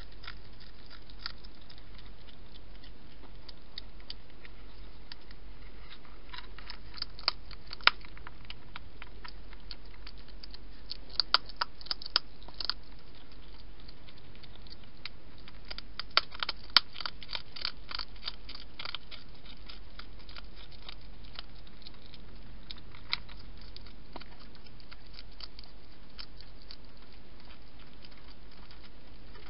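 Wild hedgehog eating at a feeding bowl: sharp crunching and clicking bites that come in several bursts with pauses between them.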